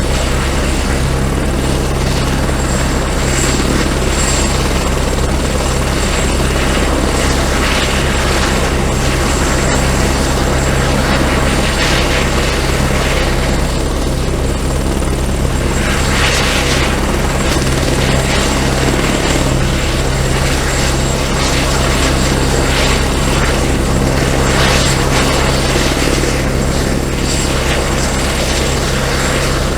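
Helicopter running steadily, a constant low rotor and engine drone with a rushing noise above it that swells and fades every few seconds.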